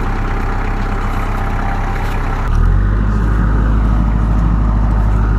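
Vehicle engine idling steadily; about halfway through, the sound changes to a deeper, louder low hum.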